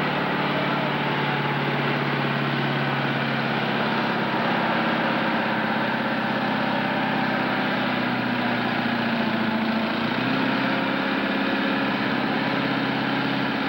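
Massey Ferguson 1150's V8 diesel running hard and steady as the tractor pulls a weight-transfer sled down a pulling track; the engine note shifts a little higher about ten seconds in.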